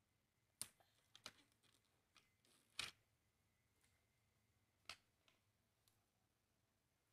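A few sharp plastic clicks and knocks as the parts of a Tomica toy car wash playset are handled and fitted together, with faint rustling; the loudest knock comes about three seconds in.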